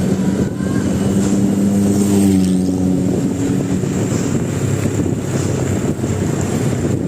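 Bus air horn held in one long steady blast that sags in pitch and cuts out about two and a half seconds in, over the rumble of the bus's engine, which carries on alone afterwards.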